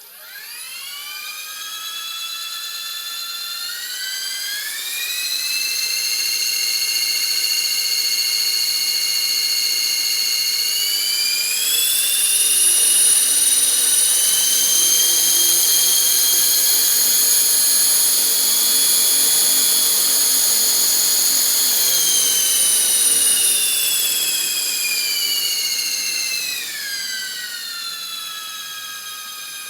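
Align T-Rex 450 electric RC helicopter's motor and drivetrain whining at high pitch. It spools up in two steps, holds steady, then steps back down near the end. The whine remains with the main rotor shaft, motor, main gear, tail drive gear and tail pitch bearings all oiled.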